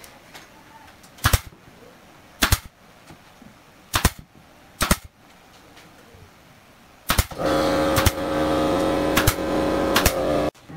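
Pneumatic nail gun firing single shots into pine, eight in all, each a sharp crack, spaced about one to one and a half seconds apart. About seven seconds in, an air compressor starts running with a steady hum under the last four shots, and the sound cuts off suddenly near the end.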